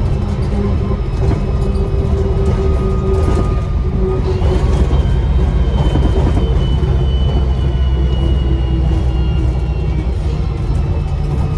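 Bus diesel engine running with a low drone, and a high turbo whistle that rises about four seconds in and holds, easing slightly before fading near the end.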